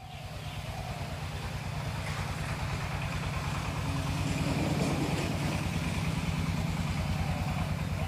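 An engine running steadily with a fast, even low throb, growing gradually louder.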